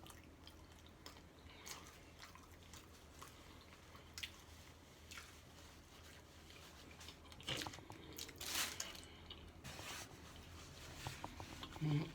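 Close-miked chewing and biting of food, with small wet mouth clicks throughout and a louder run of crunching and rustling about two-thirds of the way through.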